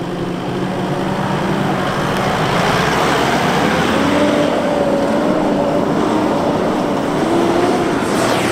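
Mitsubishi Pajero Sport's engine working hard at high revs as the 4x4 charges up a sand dune, under a steady rush of noise as the spinning tyres throw sand. The engine's droning note comes through about three seconds in and wavers slightly upward as it climbs.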